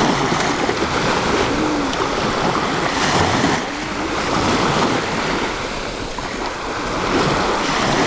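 Calm sea water washing steadily in the shallows, with wind rumbling on the microphone.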